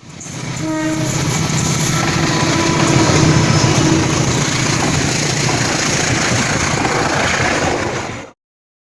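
Train passing at speed, with loud steady rumbling and wheel noise on the rails, cut off abruptly about eight seconds in.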